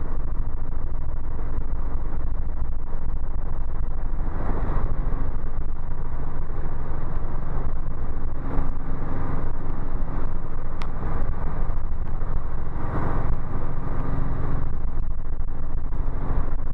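Robinson R44 helicopter's piston engine and main rotor running steadily, heard from inside the cockpit as an even drone with several low held tones.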